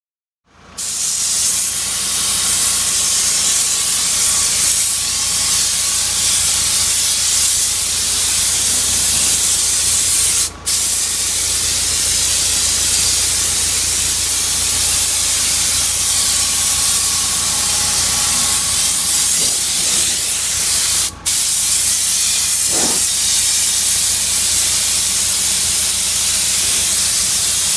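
A high-pressure washer jet is blasting water onto the steel spiked roller of a farm implement: a loud, steady hiss with a low hum underneath. It starts about a second in and breaks off very briefly twice.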